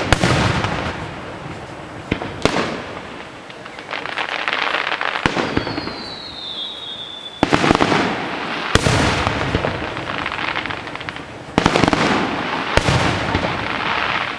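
Fireworks display: about seven sharp bangs of shells bursting every one to three seconds, each followed by a long noisy tail. A short falling whistle comes about halfway through.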